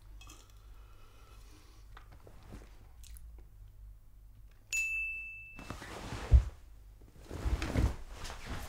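A single bright ding about halfway through, held for about a second, then rustling and thumps as a person shifts on and gets up from a leather sofa, the loudest thump about two-thirds of the way in.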